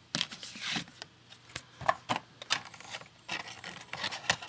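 A pack of marker pens being handled and opened by hand: irregular rubbing and scraping with several sharp clicks.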